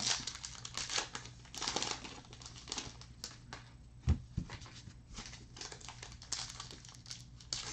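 Crinkling and tearing of a trading-card pack's foil wrapper as it is ripped open, with cards rustling in the hands. There is a dull thump about four seconds in.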